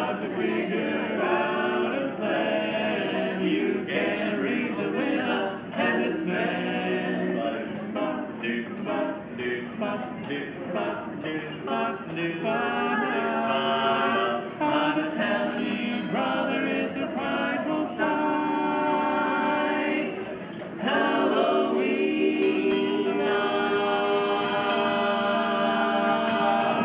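Barbershop quartet singing a cappella in close male harmony, with long held chords in the second half.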